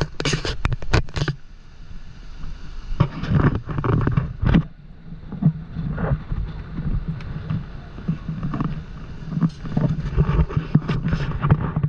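Wind buffeting the camera microphone in irregular rumbling, crackling gusts, three bunches of them, over the steady rushing roar of Horseshoe Falls.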